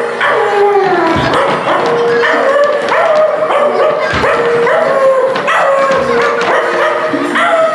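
Repeated dog-like yelping howls, roughly one a second, each falling in pitch: the cries of the stage's animal character during the fight.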